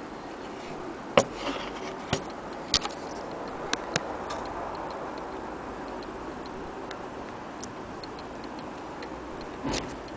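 Brass French mantel clock movement (J. Marti et Cie) ticking, with a few louder, irregular metallic clicks in the first four seconds and again near the end.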